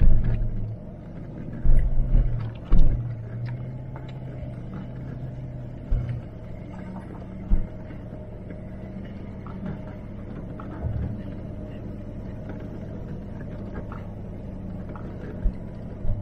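Range Rover L322 3.6 TDV8 diesel running at low speed over a rough track, heard from inside the cabin as a steady hum. Sudden knocks and thumps from the bumps come through, two loud ones two to three seconds in and a few lighter ones later.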